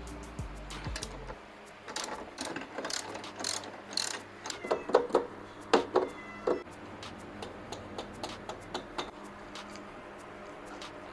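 Irregular metallic clicks and clanks from a wrench working the front axle nut of a Yamaha NVX scooter to free the wheel, loudest in a cluster a few seconds in.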